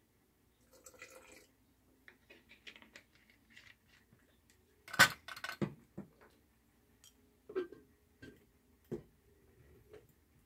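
Scattered knocks and clinks of glass and hard plastic as a blender's glass jar is handled and its lid pressed on, with one sharper knock about halfway through.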